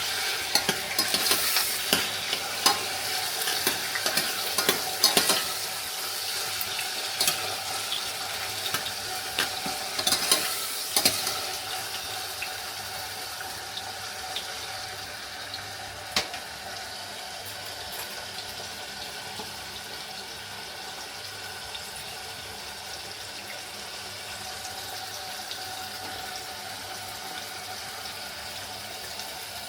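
Onion, tomato, bell pepper and hot pepper seasoning sizzling in a frying pan, with a utensil stirring and clicking against the pan. The stirring and clicks are busiest in roughly the first dozen seconds, after which a steady sizzle goes on.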